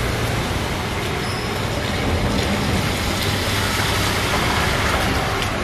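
Heavy rain falling on a city street, a steady hiss, with cars driving through the water on the wet road: tyre swish and a low engine hum from a small car passing close.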